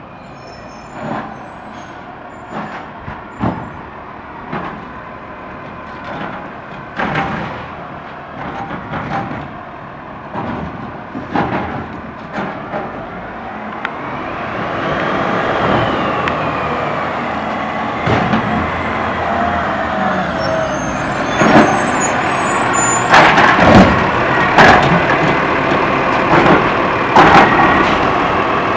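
Autocar ACX garbage truck with a DaDee Scorpion automated side-loader arm, its body clanking and rattling as it pulls up, then its engine revving with a rising and falling whine as the hydraulic arm works. Several loud bangs come about three quarters of the way in, as the arm lifts and dumps a trash cart into the hopper.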